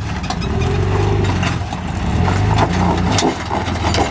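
Jeep Wrangler engine working under load while crawling up a rock ledge, revving up and easing off in pulses of about a second each. Sharp knocks and clicks from the tires and vehicle on rock are heard over it.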